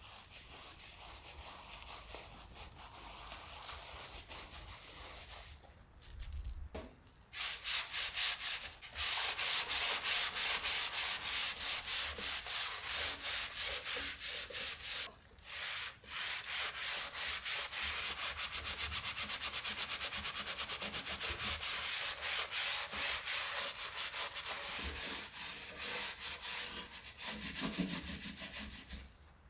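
A damp sponge rubbed in silver stone cleaning paste, then scrubbed fast back and forth over the metal of an oven door frame and side panel. It is a rapid, rhythmic rasping. It is fainter for the first few seconds and much louder from about seven seconds in, with a short break about halfway through.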